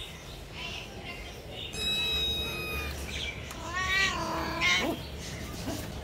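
Calico kitten meowing: a long meow that rises and falls about four seconds in, followed at once by a shorter one.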